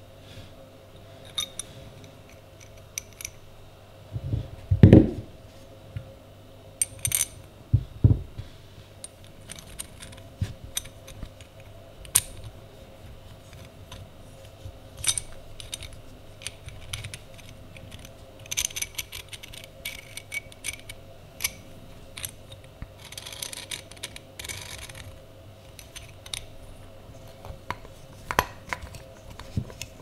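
Small metal parts of an antique Peugeot Frères coffee grinder handled and fitted together by hand: scattered light metallic clicks, clinks and scrapes. A dull thump about five seconds in is the loudest sound, with a smaller one near eight seconds, and short bursts of rattling come around twenty and twenty-four seconds in.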